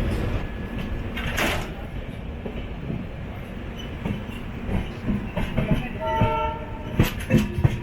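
Passenger train running, with a steady low rumble and wheels clicking sharply over rail joints or points about seven seconds in. A short locomotive horn tone sounds about six seconds in.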